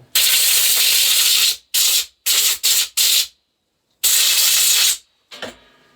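Compressed-air blow gun blasting air to clean chainsaw parts, a loud hiss: one long blast, four short quick blasts, then after a pause another blast of about a second.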